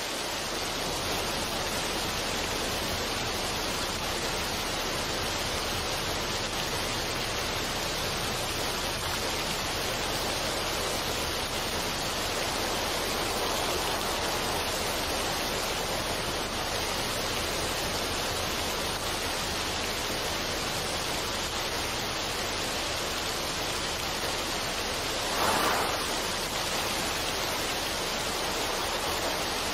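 Steady rushing of a small waterfall splashing onto rock, with a brief louder surge near the end.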